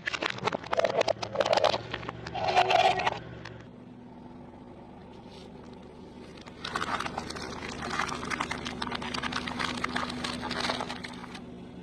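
Close-miked eating sounds: crackly chewing and crunching of food in two stretches, with a quieter pause in the middle. A faint steady low hum runs underneath.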